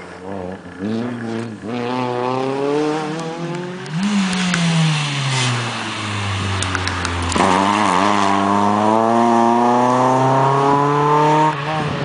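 Rally car engines on a sprint stage. First comes a car revving away through quick gear changes. Then a louder car arrives with its engine note falling as it slows into the corner, with a few sharp pops, and accelerates hard away in one long rising pull that cuts off near the end as the driver lifts or shifts.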